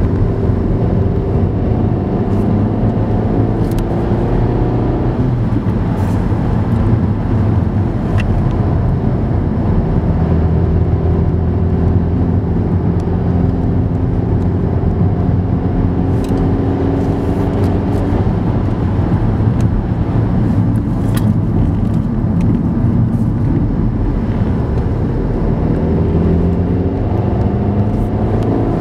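Car engine and tyre noise from inside the cabin while driving: a steady low rumble, with the engine note climbing slowly and dropping back several times as the car picks up speed and shifts gear.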